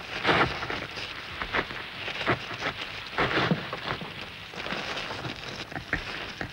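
Irregular dry crackling, scraping and clicking: dung beetles scrambling over a dung ball and the soil, heard close up. The strokes come unevenly, a few standing out louder than the rest.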